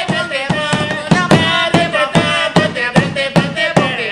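Song with a singing voice over a steady drum beat.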